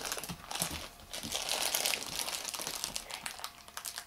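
Foil blind bag crinkling and crackling as it is twisted and pulled by hand in an attempt to tear it open, in irregular crinkles that are busiest about a second and a half in and thin out near the end.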